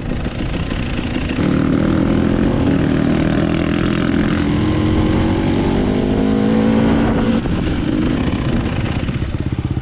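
Off-road dirt bike engine running at low revs, its pitch rising gently over several seconds and then easing off near the end.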